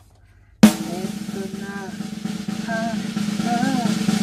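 Drum roll sound effect with music, starting suddenly about half a second in after near silence and slowly building in loudness, leading up to a reveal.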